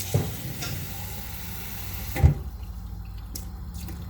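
Water being poured into a blender jar of ginger, stopping a little over two seconds in, with a single knock just as it stops.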